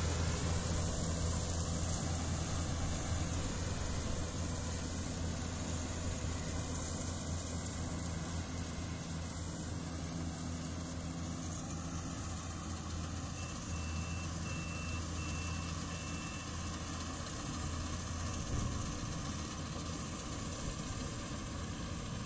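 Yanmar AW70GV combine harvester's diesel engine and threshing machinery running steadily under load while harvesting rice, a constant low drone that fades slightly as the machine moves away.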